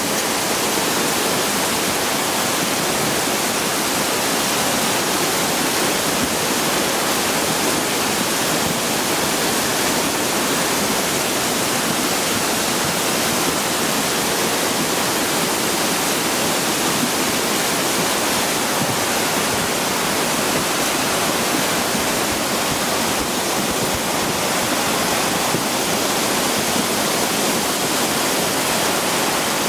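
Flash-flood runoff rushing down a stone-lined gully in a steady, unbroken rush of water, mixed with heavy rain falling.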